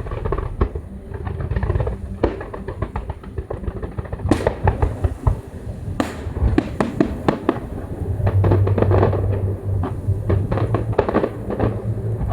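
Fireworks going off: many sharp bangs and rapid crackling, thickening into fast runs of cracks partway through, over a low rumble from the bursts.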